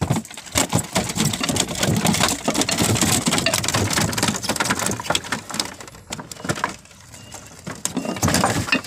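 Rapid, irregular slaps and knocks as a freshly landed barracuda is handled and thrashes against the boat's deck, quieter for a moment near the end before a last flurry.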